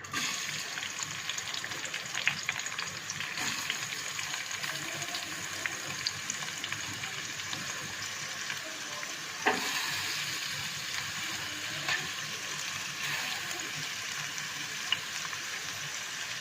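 Chopped onions hitting hot oil in a kadhai and frying, with a sudden start of steady sizzling. A few short knocks from stirring sound over the sizzle.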